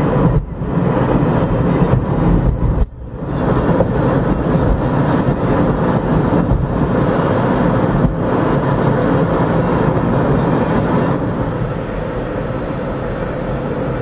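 Steady road and wind noise of a moving car, heard from inside the cabin, briefly dropping about three seconds in.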